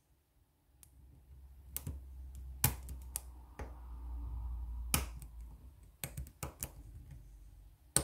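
Irregular small metallic clicks and taps of a short hook pick working the pins inside a euro profile cylinder lock under tension from a tension wrench, with a faint low rumble of handling.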